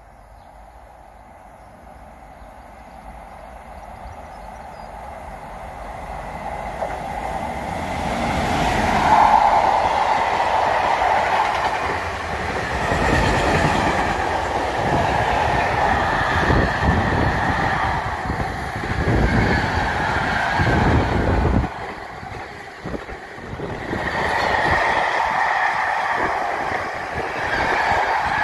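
Freight train of car-carrier wagons passing through a station at speed. The noise builds over the first nine seconds or so as it approaches, then the long rake of wagons rolls by with wheels rumbling and clattering on the rails. There is a brief dip in loudness about two-thirds of the way through.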